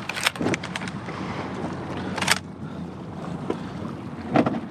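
Wind and water around a small boat on open salt water, over a low steady hum, with a few brief sharp knocks or splashes; the loudest comes about two seconds in.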